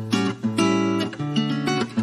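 Background music: acoustic guitar strumming chords, a new strum every half second or so.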